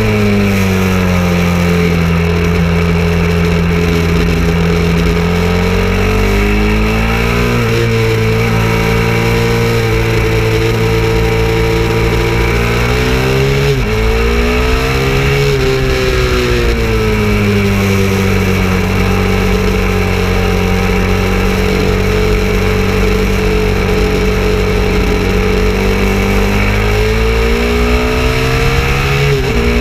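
KTM 690 Duke's single-cylinder engine running hard at high revs, heard from on the bike. It holds a steady pitch for long stretches, and the pitch falls and rises again about seven seconds in, around fourteen seconds in, and near the end as the revs change with braking, corners and gear changes.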